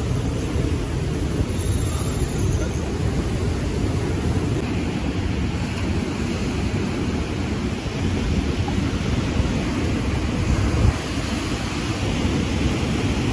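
Steady wind rumble on the microphone over the constant wash of sea surf.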